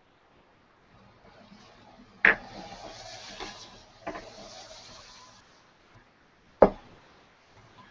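Three sharp knocks, the first about two seconds in and the last and loudest near the end, with a rustling hiss for about three seconds after the first.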